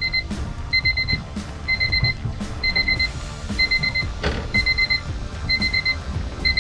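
Electronic beeper sounding short runs of rapid, high-pitched beeps, about one run a second, repeating steadily.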